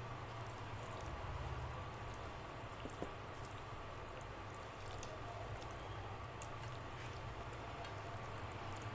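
A bare hand mixing and mashing rice with dal on a steel plate: soft wet squishing with scattered small clicks, over a low steady hum.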